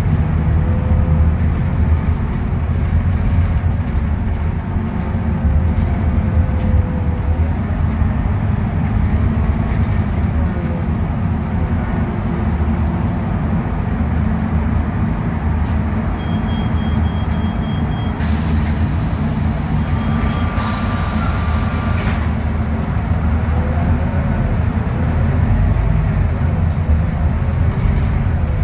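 Cabin sound of a Scania K250UB midibus under way: the Scania DC09 five-cylinder diesel and drivetrain run steadily, with a faint whine that rises and falls as it changes speed. About two-thirds of the way in, a short series of electronic beeps is followed by a burst of hissing compressed air lasting a few seconds.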